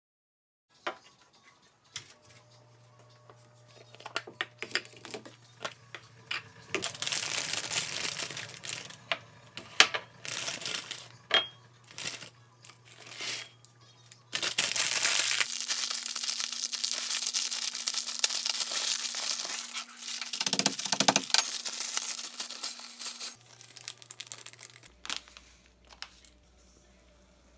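Kitchen food-prep handling sounds: plastic packaging crinkling and tearing, with scattered clicks and knocks, and a longer stretch of dense rustling noise in the middle.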